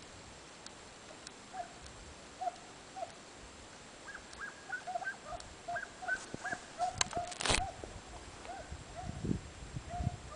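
Hunting hounds giving voice on the trail of a hare: a steady series of short, yelping calls that come faster and overlap from about four seconds in. A brief loud rustle cuts across them about seven seconds in.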